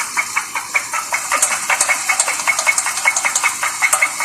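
Dodge Charger's 3.6 L Pentastar V6 idling with a rapid, regular metallic knock, about six a second. The mechanic says it is no longer just a normal valve-lifter tick: the noise is also heard from the bottom end, and he compares it to scraping, a sign of internal damage that needs the engine torn down.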